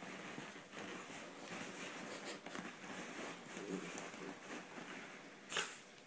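A beagle puppy wriggles and rolls on her back on a shiny bean bag, her body and paws rustling and scratching against its slick cover. One short, sharp, louder sound comes near the end.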